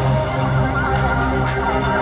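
Electronic dance-pop music with an organ-like keyboard sound over a steady bass beat.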